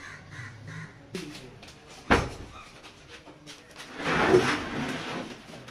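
A large plywood panel being handled on a wooden worktable: a sharp wooden knock about two seconds in, then a longer scraping bump around four seconds in as the board is shifted.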